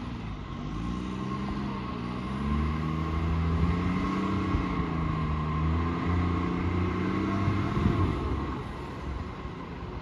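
Garbage truck engine running with an exhaust leak. The engine revs up a couple of seconds in, holds its speed, then drops back near the end.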